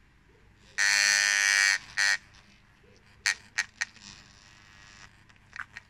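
Vintage Czech 'Vibro' mains-powered electric massager buzzing loudly for about a second, then briefly again. A few sharp clicks follow.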